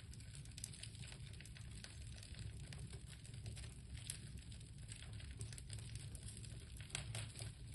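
Small fire of burning dolls crackling faintly, with scattered sharp little pops over a low steady rumble.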